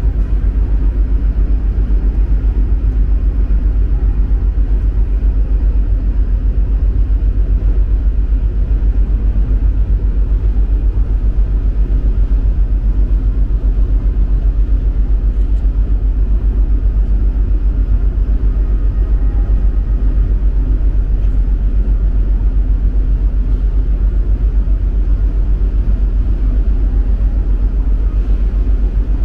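Steady low rumble of the ferry Tachibana-maru's engines and propulsion, heard from the open mooring deck as the ship gets under way.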